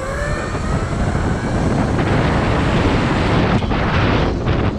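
Heavy wind buffeting on the microphone while riding a Razor MX500 electric dirt bike. Just at the start, the electric motor's rising whine fades out under the wind.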